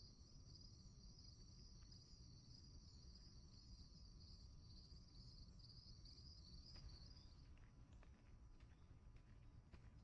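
Faint insects trilling in a steady pulsing chirr that stops about three-quarters of the way through, over a low rumble. A few faint clicks near the end.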